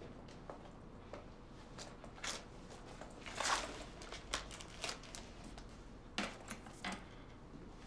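Quiet movement and handling sounds: soft rustling of clothing and a bag, with scattered light clicks and taps. The loudest is a longer rustle about three and a half seconds in.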